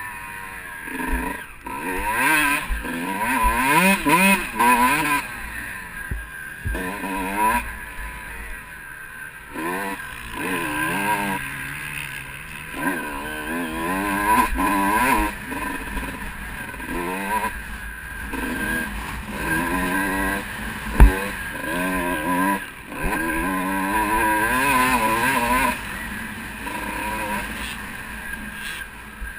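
Kawasaki KX125 two-stroke single-cylinder motocross engine revving hard and dropping off again and again as the bike accelerates, shifts and slows for corners, heard from on board the bike. One sharp knock stands out about two-thirds of the way through.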